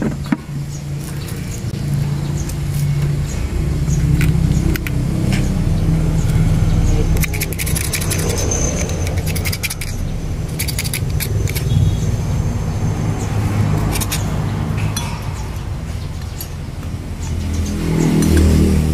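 A small engine running with a wavering, uneven low hum, with scattered metallic clicks in the middle.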